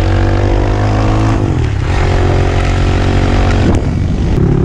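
Crossfire 250cc dirt bike engine running under way at a steady pitch, with wind noise on top; the engine note drops about a second and a half in and settles at a lower pitch near the end.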